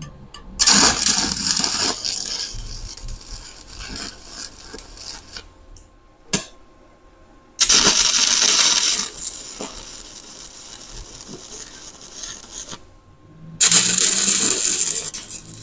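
Stick arc welding with 1/8-inch 7018 rod at about 70 amps: the arc crackles in three runs, each starting abruptly and breaking off. The first starts about half a second in, the second near the middle and the third near the end.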